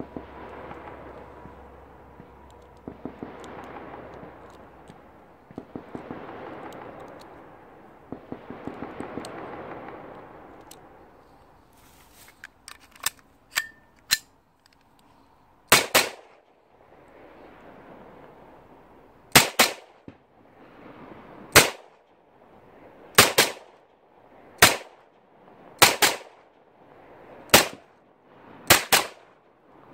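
Gunfire echoing around a valley. For the first ten seconds or so there is a rolling din of many distant shots. Then, from about halfway, loud single pistol shots are fired close by, one every one to two seconds, each followed by its echo.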